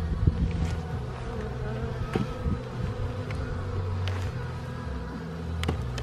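Honeybees buzzing over an open hive box: a steady low hum that shifts slightly in pitch, with a few short clicks.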